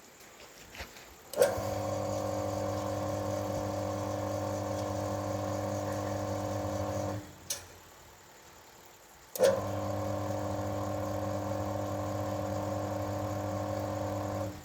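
Electric motor of a mixer-type soybean washing machine switched on with a click and running with a steady hum for about six seconds, then stopping. It is switched on again a couple of seconds later and runs for about five seconds more before stopping.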